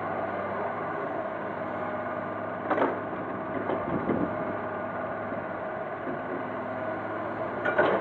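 Komatsu hydraulic excavator's diesel engine running steadily as the machine swings and dumps a bucket of soil into a dump truck, with a rough rumble of dirt dropping into the truck bed about four seconds in. Two short sharp noises, about three seconds in and near the end.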